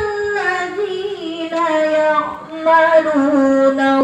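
A woman's voice reciting the Quran in melodic murattal style, drawing out long held notes that step down in pitch and settle on a long low note near the end.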